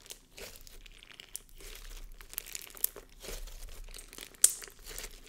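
Inflated slime with crunchy bits mixed in, squished and stretched by hand: a run of wet crackles, pops and crunches, with one sharp pop about four and a half seconds in.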